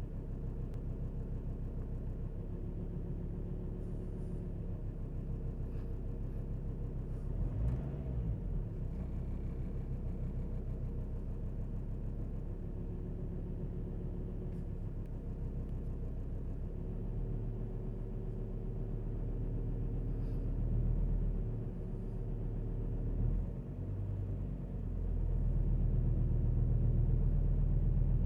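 Alfa Romeo 156 2.4 JTD's five-cylinder turbodiesel running and being revved slowly. A short rise and fall in revs comes about eight seconds in, with further swells later on, and the engine runs higher and louder over the last few seconds.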